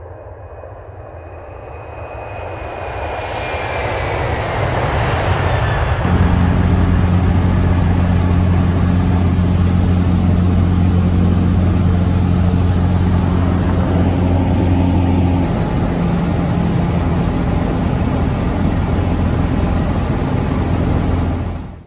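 Light high-wing aircraft's engine and propeller heard from inside the cockpit in flight: a steady drone with a strong low hum and rushing noise. It swells up over the first few seconds, with a faint falling whine, and the low hum shifts slightly about two-thirds of the way through.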